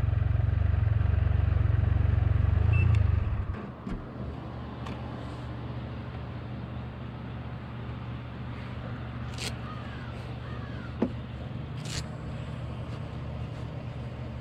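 Motorcycle engine idling with a steady low pulse, then cutting off about three and a half seconds in. After that a quieter steady low hum continues, with a few sharp clicks.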